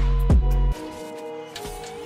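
Background music with a deep bass line and sharp drum hits. The bass and beat drop out about three-quarters of a second in, leaving quieter held notes.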